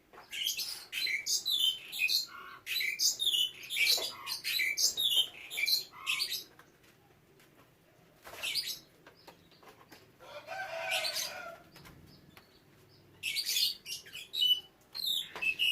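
Canaries chirping in quick runs of high notes, with a lull near the middle. About two-thirds through there is a couple of seconds of wing fluttering.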